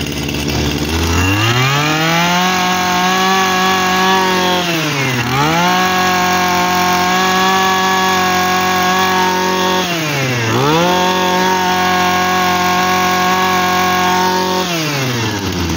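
Small 23cc two-stroke brush cutter engine revved from idle to full throttle and held there, three times, dropping briefly back to low speed between. It runs crisp and strong, the sign of a healthy engine.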